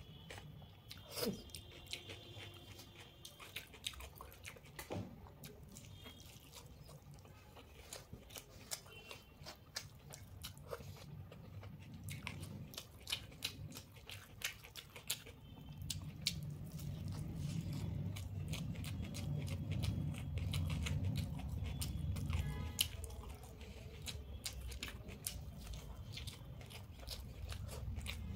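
Close-up eating sounds: a person chewing omelette taken by hand, with many small wet mouth clicks and smacks, and fingers working over a brass plate. The chewing gets louder about halfway through.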